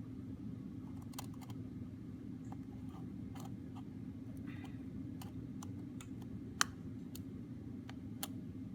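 Small, scattered clicks and ticks of a magnetic screwdriver and tiny screws on an iPod's metal shielding plate, one sharper click about two-thirds of the way in, over a steady low hum.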